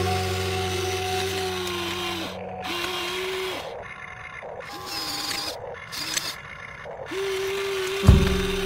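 Small electric motors and gearboxes of an RC excavator whining in several short runs as it drives and turns on its tracks, each run starting and stopping with a brief dip in pitch. Acoustic guitar music fades out at the start and returns with a click near the end.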